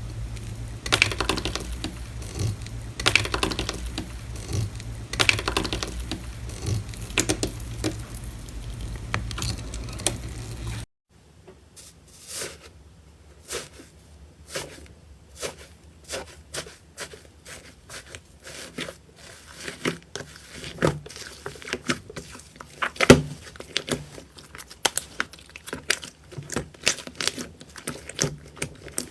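Slime being worked by hand: repeated noisy strokes about once a second over a low hum. After a sudden cut about eleven seconds in, a run of many sharp clicks and pops.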